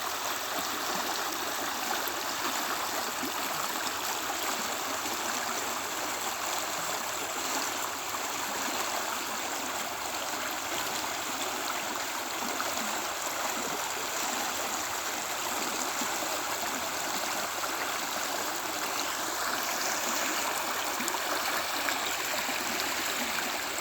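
A lively creek flowing over rocks: a steady rush of running water with gurgling.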